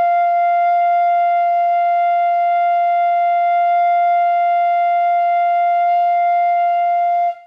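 Pífano (bamboo transverse fife) holding one long, steady note at an even pitch and level, then stopping cleanly near the end. It is a long-tone exercise: the air pressure is kept balanced so the note starts and ends at the same pitch without sagging flat.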